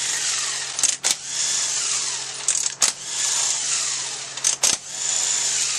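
Cordless power driver with a 10 mm socket spinning out the 10 mm valve-body bolts of a Toyota A750E/F automatic transmission. It runs in about four whirring bursts of a second or so each, with sharp metal clicks between them as the socket is moved from bolt to bolt.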